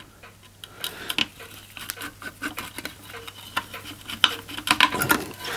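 Screwdriver working the small screws out of a model steam engine's sheet-metal firebox and boiler straps: irregular little metallic clicks and scrapes, getting busier toward the end.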